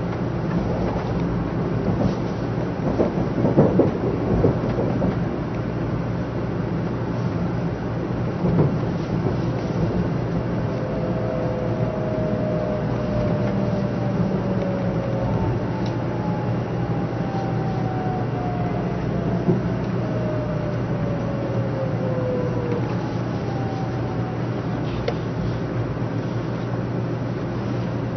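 Inside a 500 series Shinkansen train slowing for a station stop: a steady running rumble, with a few knocks in the first few seconds. Through the middle, a faint whine slides slowly down in pitch as the train brakes.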